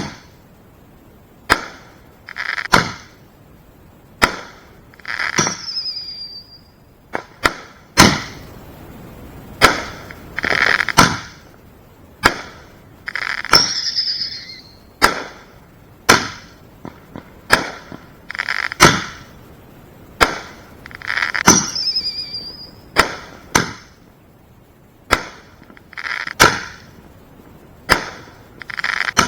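Consumer firework mortar shells going off in quick succession: sharp bangs every second or two, many followed by a second or so of crackling hiss. Three of them carry a short falling whistle.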